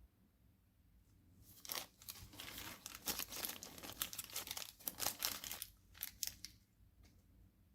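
Packaging crinkling and rustling as it is handled: an irregular run of crackles that starts about two seconds in and dies away near the end.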